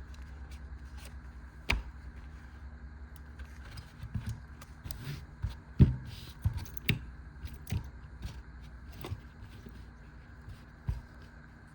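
A retail package being cut open with a knife and handled: scattered clicks, scrapes and knocks, the loudest about six seconds in, over a low steady hum.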